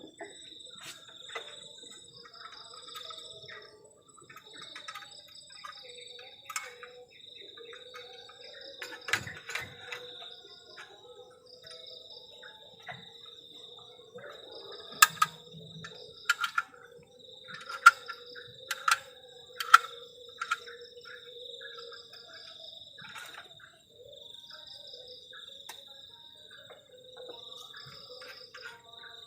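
Crickets chirping in a steady, pulsing trill on a night ambience. Several sharp clicks or knocks stand out in the middle of it.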